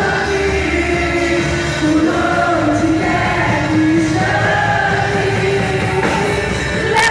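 Worship music with singing, the voices holding long notes that slide between pitches.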